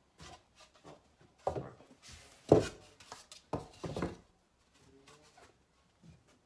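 Hollow knocks and rubbing as lightweight styrofoam shower curb sections are handled and set down onto the shower pan, a few separate knocks with the loudest about two and a half seconds in.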